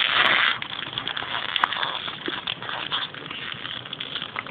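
A short rustle as a blind-bag packet is handled, then scattered small clicks and taps of plastic being handled.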